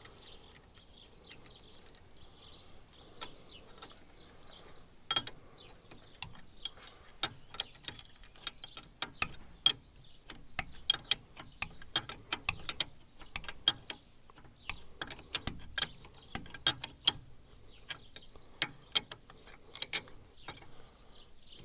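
Wrench tightening a 90-degree adapter fitting on a hydraulic line, making many irregular sharp metal clicks and clinks that thicken from about five seconds in.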